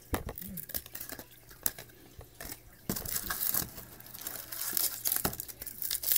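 A trading-card pack wrapper crinkling and tearing as it is opened, with cards clicking and rustling in the hands. It grows busier and louder about three seconds in.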